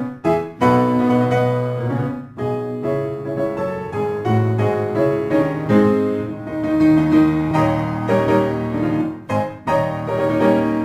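Background piano music: a melody of notes played over chords.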